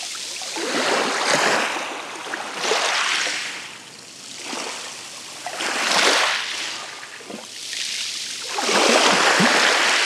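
Light sea surf washing up over a pebble beach at the water's edge: four small waves rush in and draw back, each swelling and fading over a couple of seconds.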